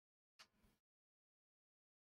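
Near silence, with only a very faint, brief blip of noise about half a second in.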